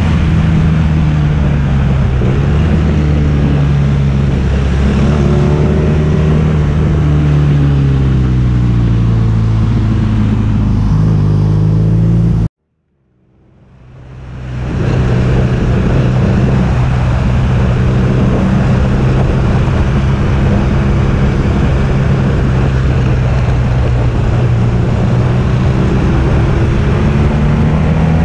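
Motorcycle engine heard from the rider's seat while riding, its pitch rising and falling with throttle and gear changes, under a steady rush of wind noise. About halfway through the sound cuts out abruptly, then fades back in over a couple of seconds and carries on.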